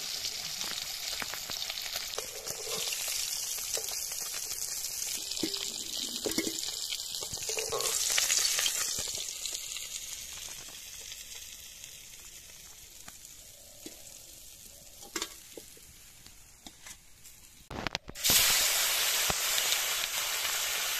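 Whole fish frying in hot oil in a kadai, a steady sizzle with a few taps and scrapes of a spatula, dying down through the middle. Near the end it jumps suddenly to a loud sizzle as fresh food goes into the hot oil.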